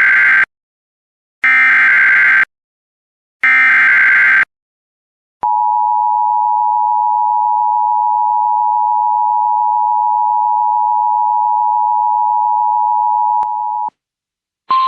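Emergency Alert System signal: three roughly one-second bursts of SAME header data, a harsh digital warble, followed about 5 seconds in by the two-tone EAS attention signal held steady for about eight seconds.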